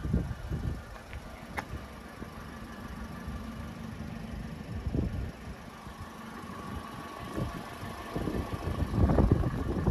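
A car engine idling steadily, with irregular low gusts of wind rumbling on the microphone, loudest near the end.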